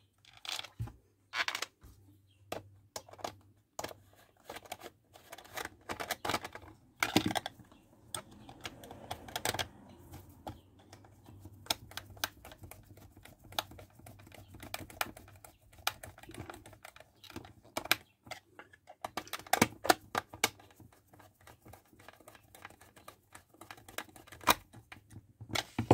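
Screws being driven by hand with a screwdriver into the plastic housing of an old Philips hand mixer, with irregular small clicks and ticks from the screwdriver and the casing being handled. The clicks bunch together about three quarters of the way through.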